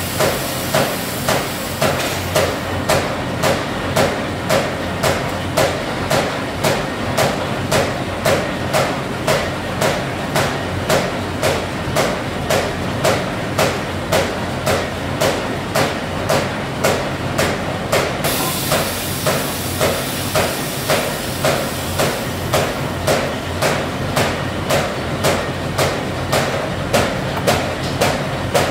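Paper bag making machinery running with a steady mechanical clatter and a regular knock about every 0.7 seconds, the beat of the machine's repeating cycle.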